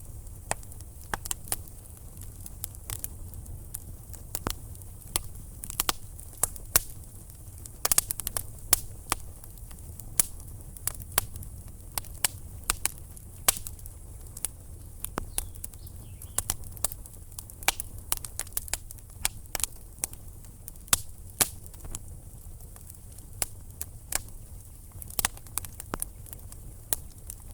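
Burning firewood crackling: irregular sharp snaps and pops, several a second, some much louder than others, over a steady low rumble of the flames.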